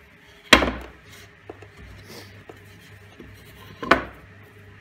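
Round MDF boards being handled and set down on a wooden workbench: a sharp knock about half a second in, a few light clicks, and a second knock near the end.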